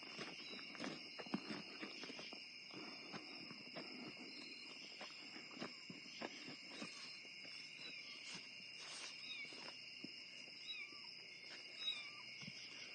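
Steady dusk chorus of crickets or other insects, with light rustling and a few faint kitten mews, mostly near the end.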